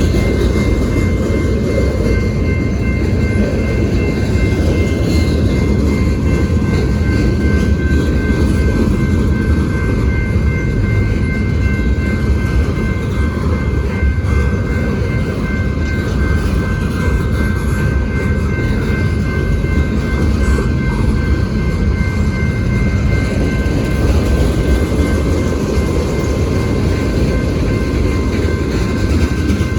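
Freight train rolling past: a loud, steady rumble of cars on the rails, with a few thin steady high-pitched tones over it.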